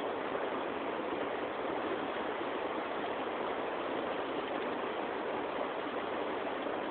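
Rushing river water: a steady, even flow.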